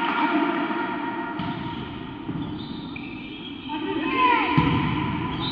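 Volleyball rally in an echoing sports hall: players' shouts and calls, and ball hits, the loudest a sharp strike about four and a half seconds in.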